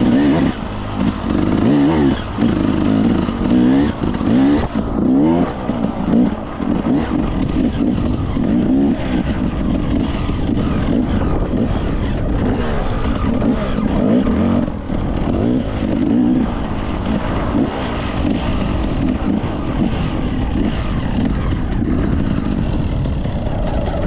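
Enduro motorcycle engine running as it is ridden, its pitch rising and falling again and again with the throttle.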